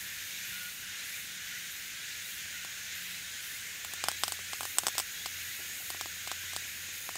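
A small twig fire in a compact wood-burning stove, with a cluster of sharp snaps and crackles about four to five seconds in and a few more a second later as sticks are fed in, over a steady hiss.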